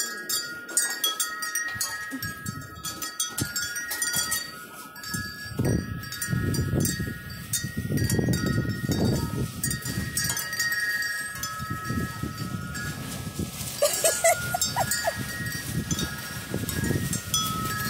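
Porch wind chime ringing steadily, several tones held and overlapping, while gusts of wind rumble on the microphone, strongest from about five to ten seconds in.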